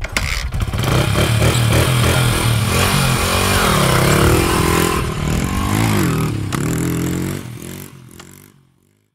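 Motorcycle engine revving up and down several times, then fading out near the end.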